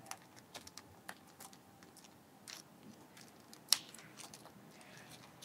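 Faint, scattered small clicks and crinkles of plastic packaging being worked open by hand, with one sharper click about two-thirds of the way through.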